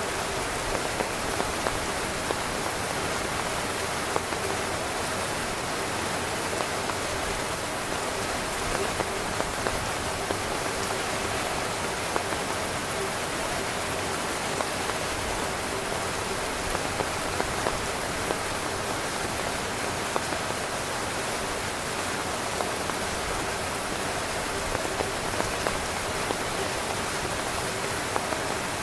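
Heavy rain falling steadily on a camping tent, with scattered louder individual drop hits standing out from the even patter.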